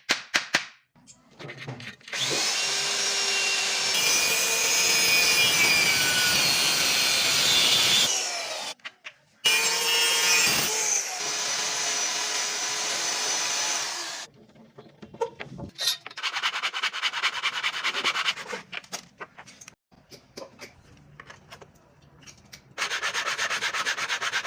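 Tools working wood: two long continuous cutting or scraping passes of several seconds each, then a run of quick repeated rasping strokes, and another dense stretch near the end.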